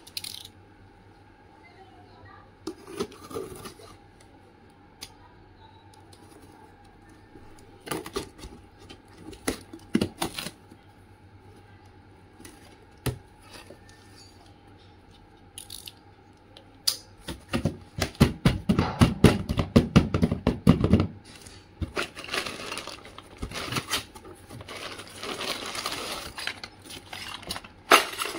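Unboxing sounds: scattered sharp clicks and scrapes as a snap-off utility knife cuts the packing tape on a cardboard box and the flaps are opened. Then plastic wrapping crinkles and rustles as the package is lifted out and handled, loudest in a dense run of crackles about two-thirds of the way through.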